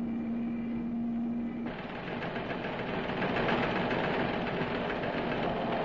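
Landing craft engine running. A steady hum stops abruptly a little under two seconds in, and the engine noise after it is rougher and fuller.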